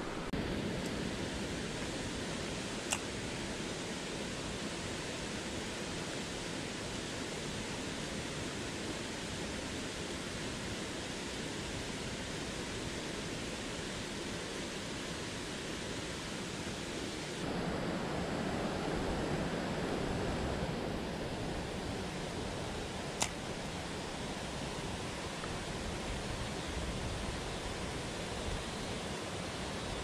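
Steady rush of a mountain stream's flowing water and riffles. Two sharp clicks stand out, one a few seconds in and one a little past two-thirds of the way through; a little past the middle the rush grows louder and deeper for a few seconds.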